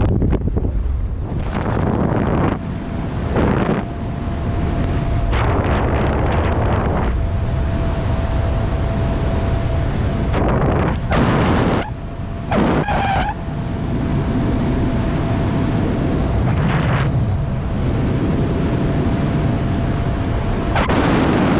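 Wind rushing over the microphone during flight under an open skydiving canopy, loud and gusty, surging and dropping every second or two. A faint steady high tone runs through much of it.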